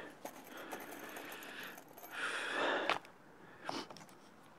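Soft breathing and rustling in two or three short stretches, about a second each, as a wooden strip is handled and held in place against the roof edge. No hammer blows.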